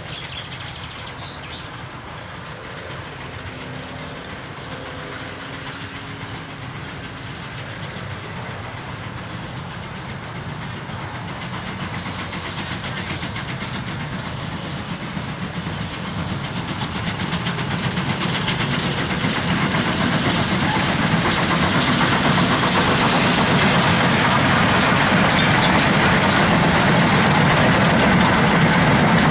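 Steam locomotive working a short goods train, its exhaust and the running of the train growing steadily louder as it approaches, then staying loud as it passes close by.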